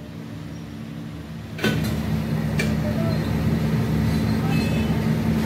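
Faint low rumble, then about a second and a half in a heavy diesel engine of the lifting machinery starts up loud and runs on with a steady, even drone.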